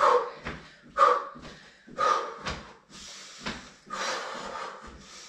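Jumping jacks: feet landing about twice a second in a steady rhythm, with heavy, hard exhalations in time with the jumps.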